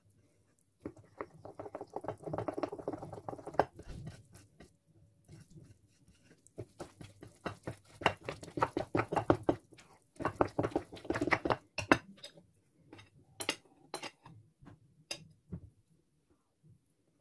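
A spatula stirring and scraping flour into a wet yogurt-and-oil batter in a glass bowl, in two long runs of quick strokes. A few sharper knocks against the glass come near the end.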